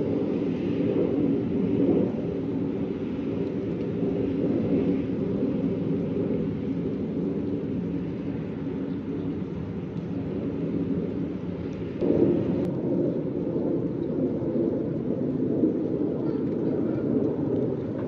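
Wind rumbling on the microphone: a steady low roar that gets louder about twelve seconds in.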